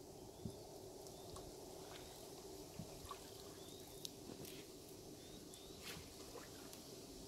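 Quiet ambience on a still river: scattered water drips and small knocks at a canoe, with faint short bird chirps now and then over a low steady hiss.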